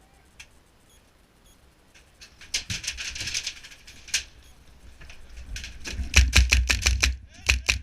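An HPA-powered airsoft rifle firing on full auto, rapid sharp cracks at about nine shots a second in two bursts with a short break between them. A stretch of scuffing noise comes a few seconds before the firing.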